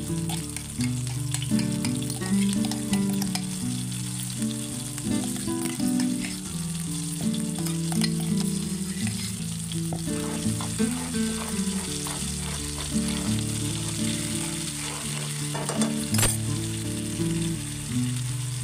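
Ground masala paste frying in hot oil with cumin seeds, sizzling steadily while a spoon stirs and scrapes it around the pan.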